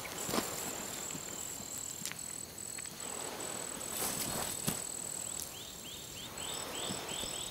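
Insects shrilling in a high, thin, steady tone that breaks off and resumes in short pulses, with a run of short rising chirps, about three a second, in the second half. A few faint knocks sound over it.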